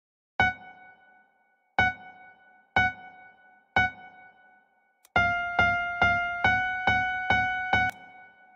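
Virtual grand piano in SoundTrap playing single high notes: four separate notes about a second apart, then an even run of about seven repeated notes at roughly two a second, each note dying away quickly.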